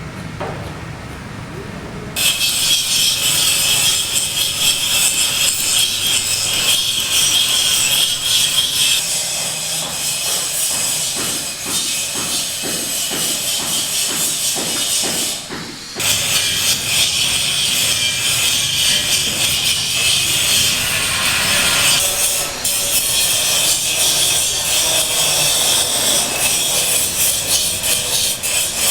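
Building-site work noise, mainly a saw cutting, a harsh, dense rasp that starts about two seconds in and shifts abruptly twice, as if several takes were cut together.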